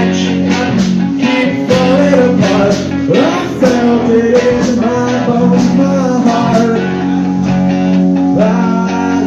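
Live rock band playing a passage without words: guitar over a steady drum beat.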